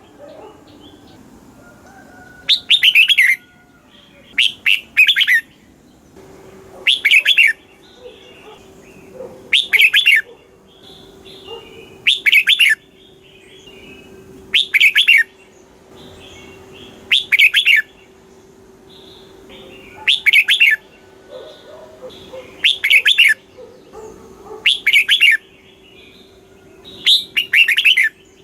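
Red-whiskered bulbul singing short, loud warbled phrases, one about every two to two and a half seconds, with fainter chirps in between.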